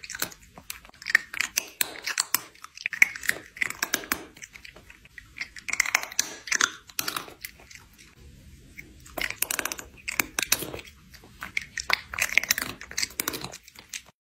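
A cat chewing and smacking its mouth close to the microphone: quick wet clicks in bursts, with a short lull about halfway through.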